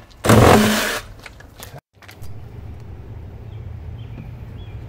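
A loud burst of a motor-driven tool running for under a second, then, after a brief dropout, a low steady hum.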